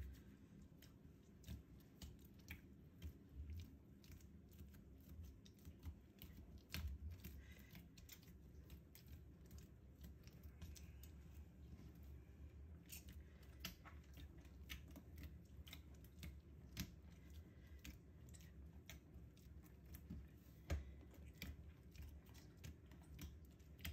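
Faint, irregular soft taps and clicks of hands kneading semolina dough on a worktop, over a low steady hum.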